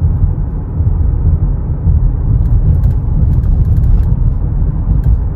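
Lexus NX350 cabin on the move: a steady low road-and-drive rumble, with a few faint, brief rattling clicks in the middle and near the end. The 'biriri' buzzing rattle is the sign of the panoramic roof glass working against its mounting.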